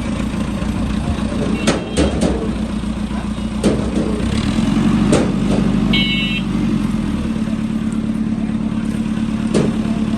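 Heavy earth-moving machine's engine running steadily, with a handful of sharp metallic clanks scattered through and a brief high squeak about six seconds in.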